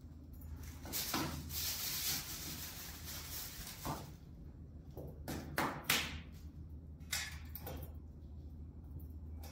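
Lumps of coal dropped by hand into a small metal wood stove: a rustle from the plastic bag they are taken from about a second in, then a string of sharp clinks and knocks against the stove. A low steady hum runs underneath.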